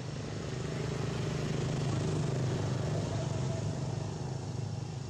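Engine drone of a motor vehicle, steady and low, swelling about two seconds in and easing off near the end.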